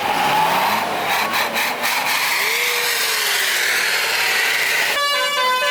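Loud raspy rushing noise with a slow rise and fall in pitch, then about five seconds in a multi-tone bus 'telolet' horn starts a tune of stepping notes.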